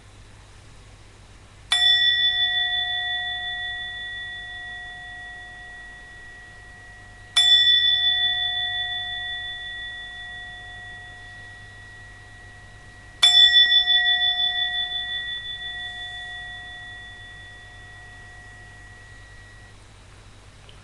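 Meditation bell struck three times, about six seconds apart, each strike ringing on with a clear tone and slowly fading: the three bells that open a period of zazen sitting.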